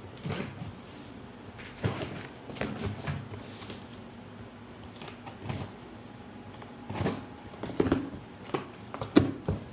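A cardboard shipping box being opened and its packaging handled by hand: scattered clicks, short scrapes and rustles, the sharpest near the end.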